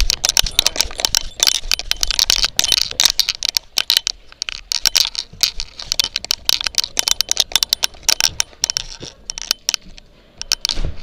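Rapid rattling and clicking from a moving dog's collar, heard up close through an action camera clipped to it. It goes on almost without a break, thins out near the end, then comes back in a brief loud cluster.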